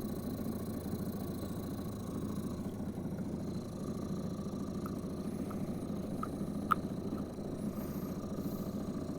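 Small boat motor idling steadily, with one sharp click about two-thirds of the way through.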